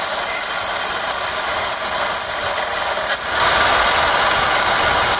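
Palmgren belt grinder grinding the teeth down on a worn-out steel file, a loud steady hiss of steel on the abrasive belt. About three seconds in the file is lifted off, the hiss cuts out sharply, and the belt and motor keep running.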